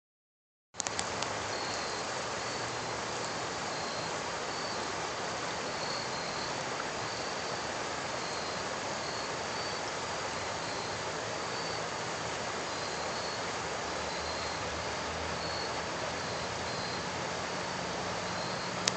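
Muskingum River water rushing past in a steady wash, with a faint high chirp repeating at a regular pace. A few clicks sound near the start.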